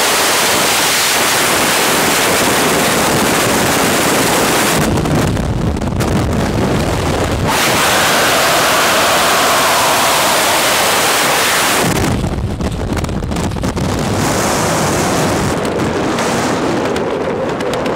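Freefall wind rushing over a skydiver's helmet-camera microphone: a loud, steady roar of noise whose tone shifts abruptly several times as the camera turns in the airflow.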